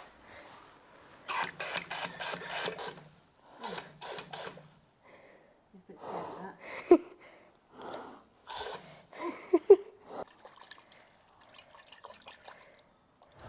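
Water gushing into a stable's automatic drinking bowl in several short spurts, about a second each, as its paddle is pressed, with a couple of sharp knocks.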